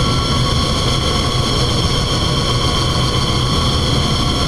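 Steady drone of a running Banbury internal mixer and its hydraulic pump system: a low hum with several steady whining tones above it, unchanging throughout.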